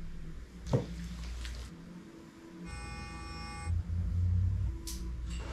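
Quiet background music over a low droning bass. There is a short sweeping thump under a second in, and a bright held note for about a second near the middle.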